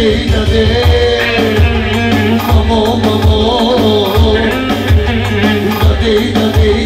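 Turkish Roman havası dance music: an ornamented, wavering lead melody over a steady low drum beat.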